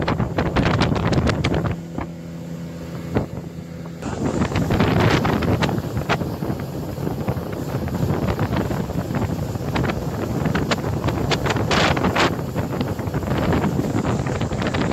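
Speedboat running at speed: wind buffeting the microphone and the rush of water from the wake, over the engine's steady drone. About two seconds in the wind drops for a moment and the engine hum is clearer, then the wind and water noise comes back louder around four seconds in.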